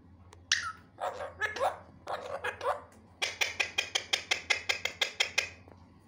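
Alexandrine parakeet calling: several short harsh squawks with sliding pitch, then a fast run of short sharp notes, about eight a second, that stops near the end.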